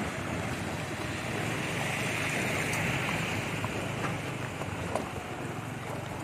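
Outdoor road noise: a steady low rumble of traffic with wind buffeting the microphone, swelling and fading again about two to three seconds in.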